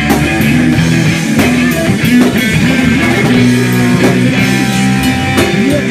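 Live rock band playing: electric guitar notes held over a drum kit, with drum and cymbal hits keeping a steady beat.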